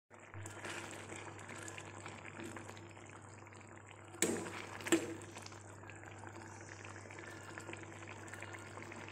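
Soya chunk and potato curry simmering in a kadai, its gravy bubbling steadily. About four seconds in, a spoon knocks twice against the pan, less than a second apart.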